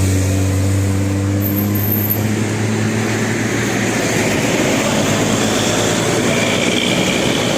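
Large bus running close by: a steady low engine hum for about the first three seconds, giving way to a broad, even noisy rumble as it moves.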